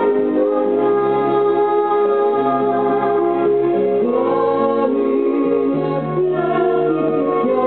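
A musical theatre number: voices singing long held notes in chords over instrumental backing with a sustained bass line.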